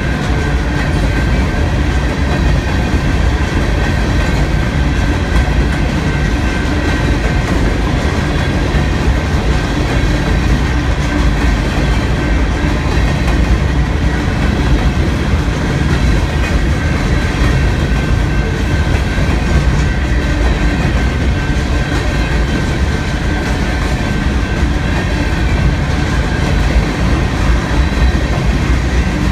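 A freight train's open-top hopper cars rolling past at close range: a steady, loud rumble of steel wheels on rail with a thin steady whine over it.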